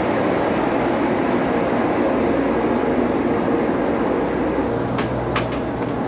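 Steady engine rumble with a rushing noise. A low steady hum comes in near the end, with a few light clicks.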